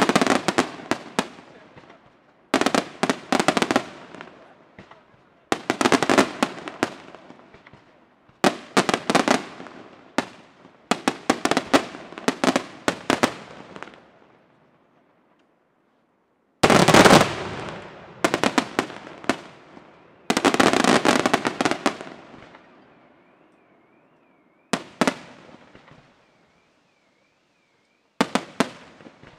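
Aerial firework shells and comets bursting in fast rattling volleys of bangs, about ten volleys each a couple of seconds long that trail off, with a longer pause around the middle. A faint warbling tone comes in near the end.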